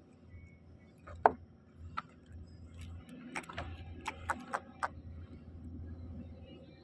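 Sharp clicks and taps from a small hand tool and fishing tackle being handled close up. The loudest click comes about a second in, followed by a quick cluster of clicks between three and five seconds, over a low steady hum.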